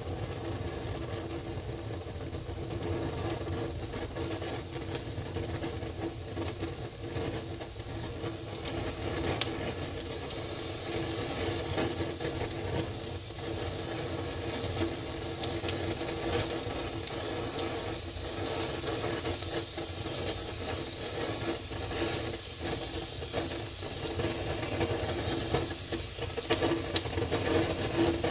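Wood fire burning in a fireplace: a steady hiss with scattered sharp crackles and pops.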